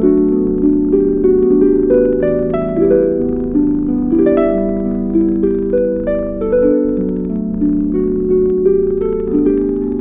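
Calm instrumental background music: a flowing melody of notes that start sharply and fade, over sustained lower chords, at an even level.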